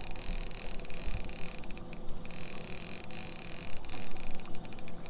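Fishing reel's clicker ticking in irregular runs as line is pulled off by hand, over a steady hiss of wind and water.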